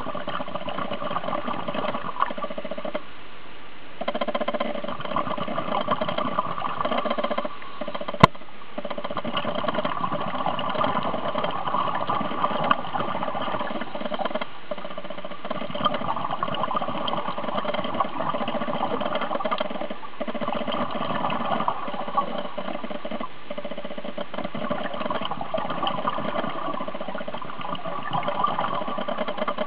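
Steady motor hum with a coarse, buzzy texture, dropping out briefly a few times, with one sharp click about eight seconds in.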